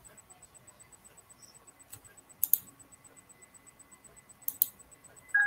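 Sharp clicks at a computer: a single click about two seconds in, a quick pair of clicks at about two and a half seconds and another pair at about four and a half seconds, then a brief tone and more clicks near the end, over faint room hiss.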